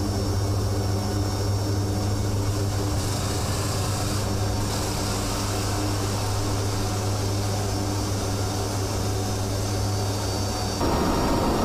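A steady engine drone with a strong low hum. About eleven seconds in it steps up slightly louder and fuller.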